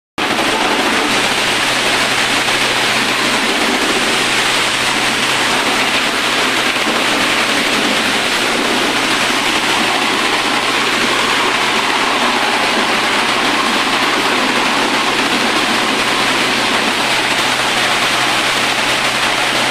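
Four-wheeled corn sheller with a conveyor running while corn cobs are fed in and threshed: a loud, steady rushing noise with a constant low engine hum underneath.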